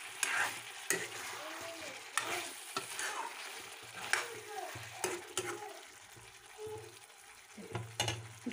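Chicken and potato curry sizzling and bubbling in a kadai while a spatula stirs it, with sharp knocks of the spatula against the pan about once a second.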